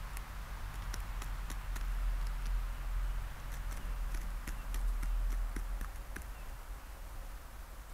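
Eurasian magpies pecking at food on the ground: irregular sharp beak taps and clicks, a few a second, over a steady low rumble.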